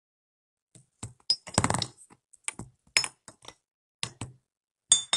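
A run of sharp clicks, knocks and clinks of small hard objects, starting about a second in, with a dense cluster soon after and a short ringing clink near the end.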